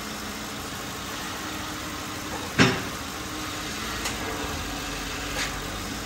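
2007 Lincoln Town Car's 4.6-litre V8 idling steadily, its power steering system freshly refilled and bled and sounding pretty good. A single sharp knock comes about two and a half seconds in, with two fainter clicks later.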